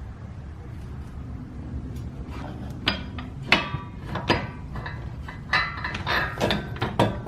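A series of sharp metallic clinks and clunks, most of them from about three seconds in, as the Honda Odyssey's front CV axle is worked by hand; the knocking comes from a worn CV joint with a lot of play.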